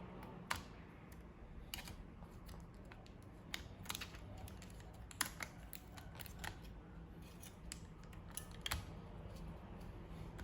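Scattered sharp clicks and light taps of small tools and plastic or metal parts being handled on an open laptop, coming irregularly about once a second, over a low steady hum.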